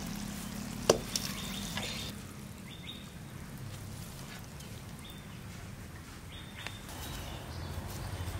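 A sharp metallic clank about a second in as a steel kadai is lifted off a clay stove, with a few lighter knocks just after. Then low outdoor background with a few brief bird chirps.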